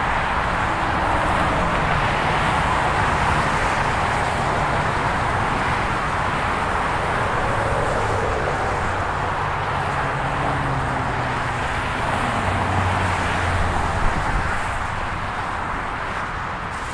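Southbound Interstate 15 freeway traffic passing close by at highway speed: a steady rush of tyre and engine noise, with low engine tones rising and falling as vehicles go past. A short thump stands out about fourteen seconds in.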